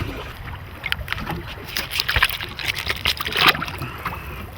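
Small fishing boat drifting with water slapping against the hull. Irregular knocks, clicks and wet splashy sounds come through, heaviest around the middle.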